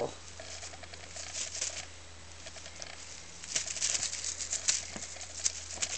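Two Birman kittens play with a feather teaser on carpet, making soft, scratchy rustling and patter in scattered flurries: paws scrabbling on the carpet and the feathers brushing. The flurries come about a second and a half in and again through the second half.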